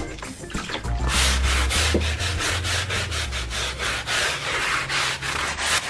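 Stiff-bristled, wooden-backed hand brush scrubbing wet carpet in quick back-and-forth strokes, about three to four rasps a second, starting about a second in. The brush is working rinse water into the carpet pile to wash out baking soda and vinegar.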